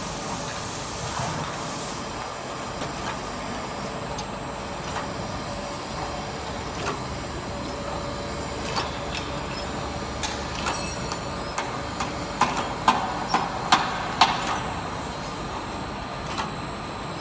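MIC-L45 automatic aluminium tube filling and sealing machine running: a steady mechanical hum with a thin high whine, and irregular sharp clicks and clacks, with a run of louder clacks about twelve to fourteen seconds in.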